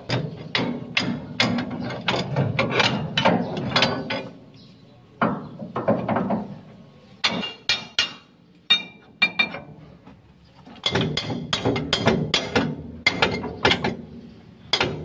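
Ratchet wrench clicking in quick runs of strokes, working the U-bolt nuts on a truck's leaf spring pack, with short pauses about four seconds in and again from about eight to eleven seconds in.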